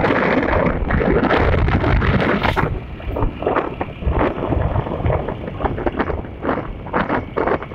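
Wind buffeting a phone's microphone: a loud, rough rush that is steady for the first few seconds, then turns choppy and uneven with short gusts.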